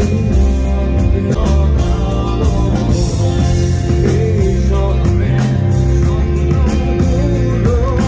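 A rock band playing live at a soundcheck: electric guitar, bass guitar and drums, with a male voice singing into the microphone from about halfway through.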